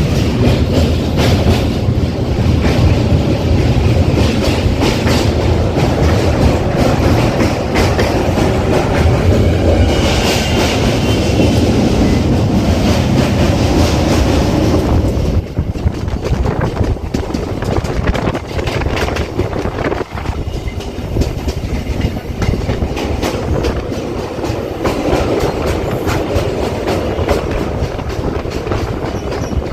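Suburban electric local train running along the track heard from on board: a steady low rumble with the clickety-clack of wheels over rail joints, the noise easing a little about halfway through.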